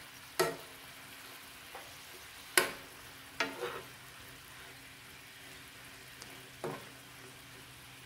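Spinach and carrots sizzling faintly in a frying pan as they are stirred with a metal spoon. The spoon clinks sharply against the pan about six times.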